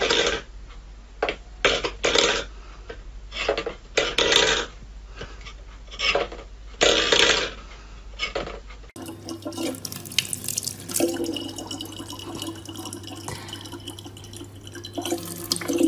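A cat pawing a stainless steel bowl across a wooden floor, the metal bowl scraping and clattering in short, irregular bursts. About nine seconds in, this gives way to a thin stream of water running steadily from a tap into a plastic bottle.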